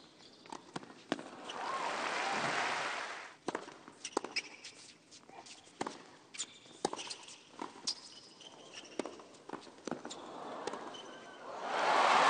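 Tennis on a hard court: sharp racquet hits on the ball and short shoe squeaks during rallies. A crowd applauds after a point about two seconds in, and again, louder, near the end.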